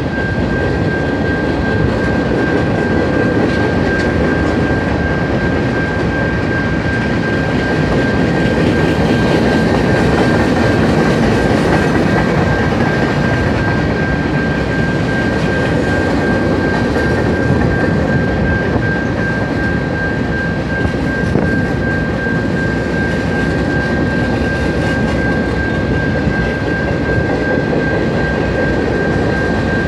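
A freight train of centerbeam flatcars and boxcars rolling steadily through a grade crossing, its wheels and cars rumbling. The crossing's warning bell rings throughout as a steady high tone.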